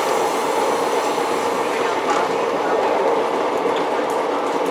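Diesel rail motor travelling along the line, heard from inside the cab: a steady engine drone mixed with wheel-on-rail running noise.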